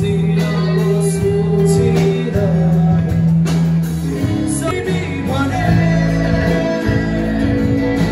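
Live band playing amplified music: strummed acoustic and electric guitars with a singing voice over them.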